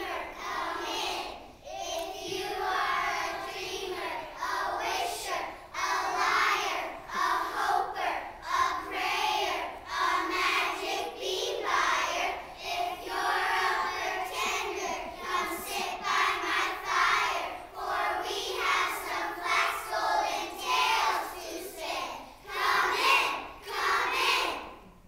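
A class of young children's voices in unison, reciting a poem together in short sing-song phrases with brief pauses between them.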